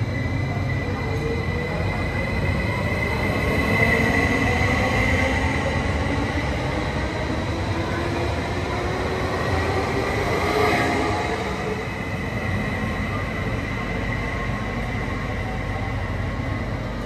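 Electric commuter train (Stadler FLIRT multiple unit) moving along an underground station platform: a steady rumble of the cars with a motor whine that rises in pitch and a high steady tone, echoing in the station hall.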